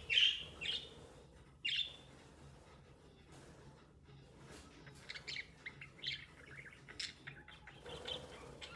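Budgerigar chirping: a few loud, sharp chirps in the first two seconds, then a run of quieter, quick chirps from about halfway through. This is an excited budgie worked up by recorded budgie chirping played on a computer.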